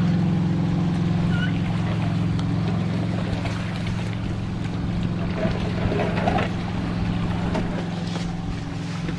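Motorboat engine running, a steady low drone that slowly grows a little fainter, with a brief rush of noise about six seconds in.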